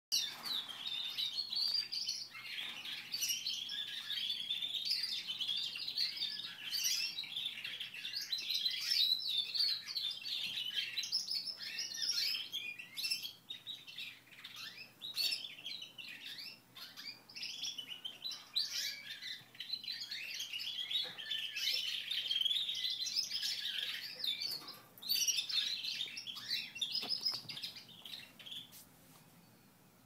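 Caged canaries singing: long, high-pitched warbling song full of rapid trills that runs almost without a break, falling quiet just before the end.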